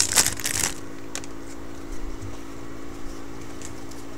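Foil trading-card pack wrapper crinkling for about the first second, then quieter soft clicks of cards being handled, over a steady low hum.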